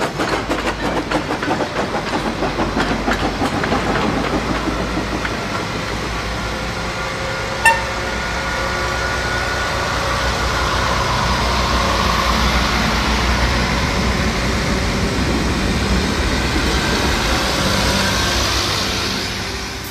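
O scale model trains running on the layout. Rapid rhythmic clicking of wheels over the track for the first few seconds, then a steady diesel-engine drone, with one sharp click about eight seconds in.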